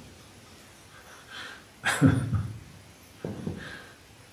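A man chuckling in short bursts, the loudest about two seconds in and a softer one about a second later.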